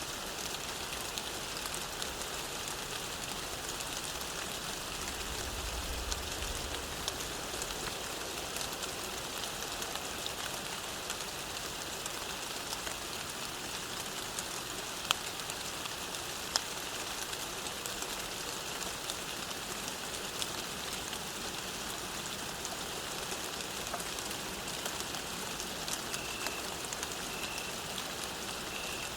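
Steady rain falling, with a few louder single drops striking close by. Faint short high chirps repeat a few times near the end.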